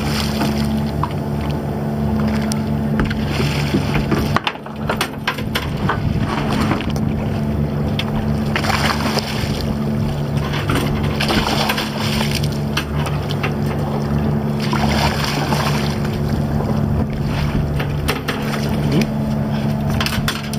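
Boat's inboard engine running steadily with a low hum, while water splashes and sloshes against the hull as a hooked tope shark thrashes at the surface. Scattered knocks come from the fish and tackle against the boat.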